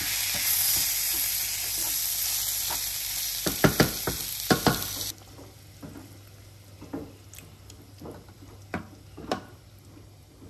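Rice and red lentils sizzling in hot ghee in a non-stick pan while a wooden spatula stirs them, with a few sharp scrapes and knocks about halfway through. The sizzling then cuts off suddenly, leaving only faint taps of the spatula.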